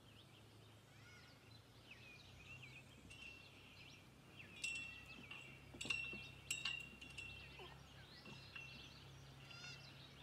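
Faint songbirds chirping and whistling, with three sharp metallic clinks about halfway through that ring on at one steady pitch.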